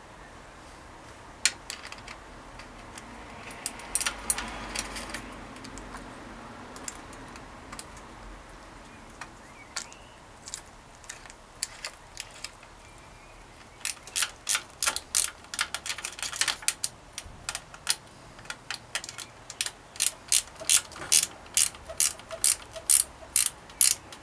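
Small metal clicks of a 4 mm hex key working a bolt that fixes a bicycle mudguard stay to the chainstay. Scattered at first, they become a steady run of sharp ticks, about two a second, in the second half.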